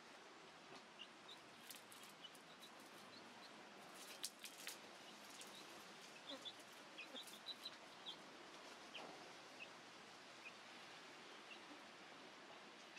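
Near silence with a faint outdoor background, broken by scattered short, high bird chirps and a few light clicks, most of them in the middle.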